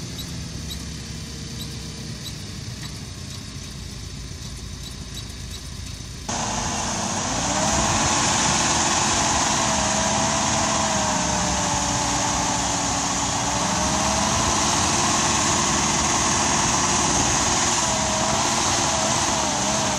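Diesel engine of a Lindner transporter running under load to drive the slurry tank's lobe pump, with the steady rushing hiss of the slurry jet cannon spraying. The engine pitch drifts up and down slightly. About six seconds in the sound jumps abruptly louder and the hiss comes to the fore.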